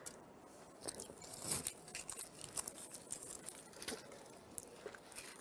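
Faint, scattered small clicks and rustles of hands handling small objects, with a louder rustle about one and a half seconds in.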